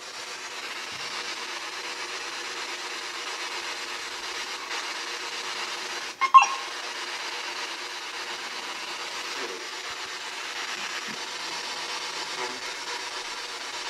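P-SB7 spirit box sweeping radio stations: a steady hiss of static, with one brief louder burst of radio sound about six seconds in, captioned as possible radio interference.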